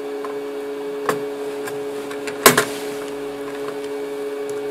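Metal clicks of a desktop processor being seated in an LGA 1155 socket and the socket's load plate and lever being closed, with a small click about a second in and a sharp double click, the loudest sound, about two and a half seconds in. A steady hum runs underneath.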